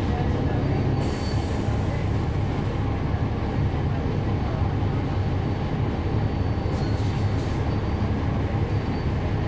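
Inside a NABI 40-SFW transit bus: its Cummins ISL9 diesel engine running with a steady low drone under road rumble. A brief high hiss comes in about a second in and again around seven seconds.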